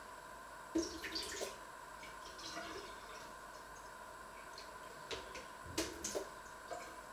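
Kitchenware clinking and knocking at a kitchen sink, a few short sharp knocks in two clusters, about a second in and again after five seconds, over a steady faint hum.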